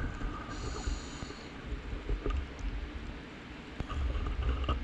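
Muffled underwater sound heard through an action camera's waterproof housing: a steady low rumble of water with a few faint scattered clicks and a brief high hiss about a second in.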